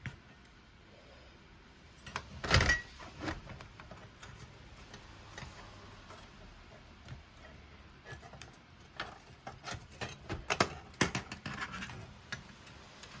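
Clicks and knocks of hands handling the CD/cassette deck and its parts, with a loud knock about two and a half seconds in and a quick run of clicks near the end.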